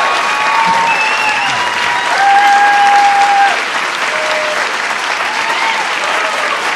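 Audience applauding steadily, with several drawn-out whoops and cheers rising over the clapping.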